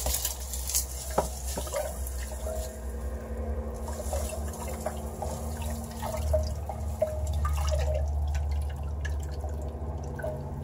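Lye flakes (potassium and sodium hydroxide) are tipped into water in a stainless steel pot and stirred with a silicone spatula. The dissolving potassium hydroxide growls with a low rumble, louder about six seconds in, among small crackles and clicks.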